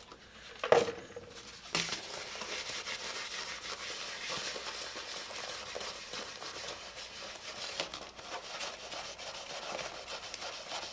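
Steady rubbing and scrubbing, with a couple of small clicks near the start: a plastic surface being wiped down with alcohol and water to lift dirt and permanent marker.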